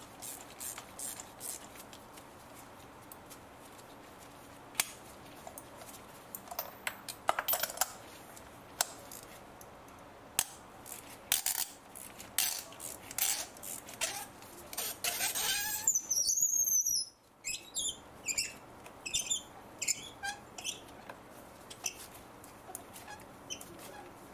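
Metal hand tools clinking and clicking against metal, with scraping and a short squeak about two-thirds through.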